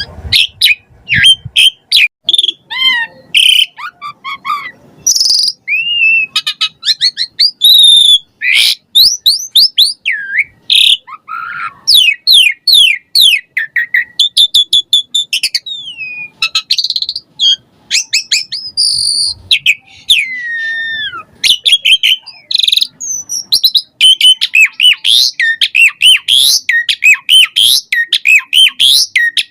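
Asian pied starling (jalak suren) singing at full output: a fast, unbroken run of varied whistles, chirps, trills and sliding notes, with phrases borrowed from other birds mixed in.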